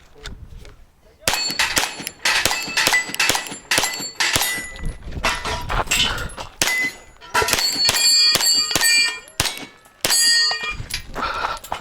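Glock 17 Gen5 MOS 9mm pistol firing rapid strings of shots, starting about a second in, with short pauses between strings. Steel targets ring with a metallic clang as hits land.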